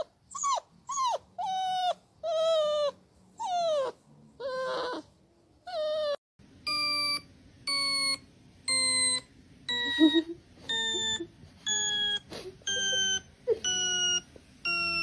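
A dog whining in a run of short high calls, each sliding down in pitch, for about the first six seconds. Then a string of short, steady electronic beeps, a little more than one a second, takes over until the end.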